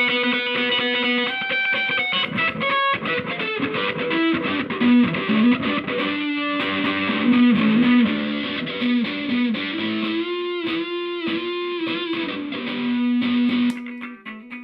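Electric guitar played through a distortion effects pedal: single-note lines with sustained notes and string bends, ending on a held note that cuts off suddenly near the end.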